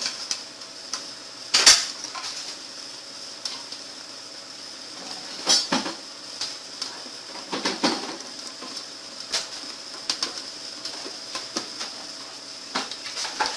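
Scattered clicks, knocks and light rattles of a wiring harness and its connectors being handled and fitted into a small speaker box, with a few louder knocks about two, six and eight seconds in.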